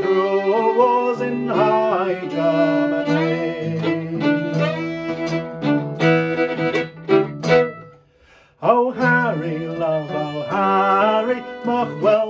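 Fiddle playing a folk melody with slides and ornaments over acoustic guitar accompaniment. The music stops briefly about two-thirds of the way through, then both come back in.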